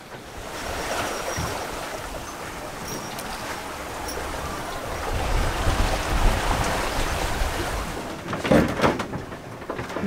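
Steady rush of wind and sea around a sailboat under way on the open ocean. A gust buffets the microphone about halfway through, adding a low rumble.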